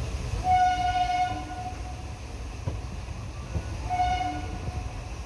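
Train horn sounding twice, a blast of a little over a second and then a shorter one about three seconds later, over the low rumble of the moving train.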